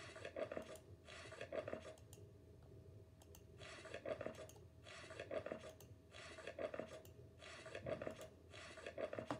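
Glossy magazine pages turned one after another, each turn a soft papery swish about a second apart, with a short pause about two seconds in.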